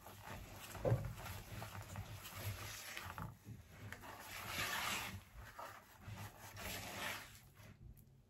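A hand stirring and folding thick sugar icing in a wooden bowl, making soft, irregular wet squishing and swishing as the food colouring is worked through. The loudest stretch comes about four to five seconds in.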